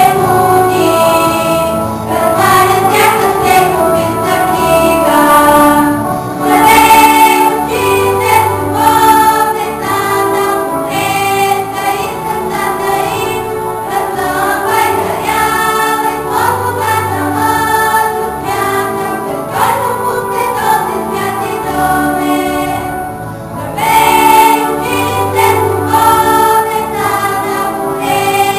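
Background music: a choir singing a melody with instrumental accompaniment.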